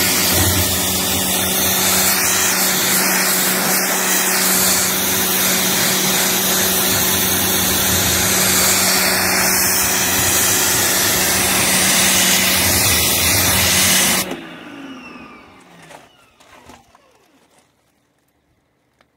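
Pressure washer blasting a jet of water against a large rubber tyre, its motor and pump running with a steady hum under the hiss of the spray. About fourteen seconds in it is switched off and winds down, falling silent a few seconds later.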